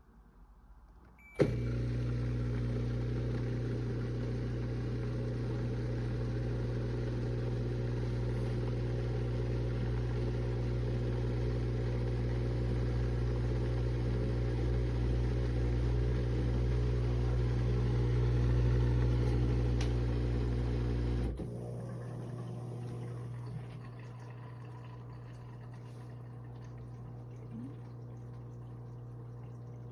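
Countertop mini dishwasher starting up with a click and running with a steady motor hum and hiss; about 21 seconds in it drops to a quieter hum.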